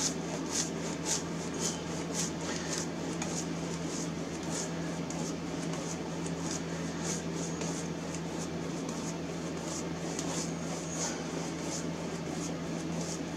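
Wide flat paintbrush swishing back and forth across a canvas, spreading a wet glaze in quick strokes about twice a second. A steady electrical hum runs underneath.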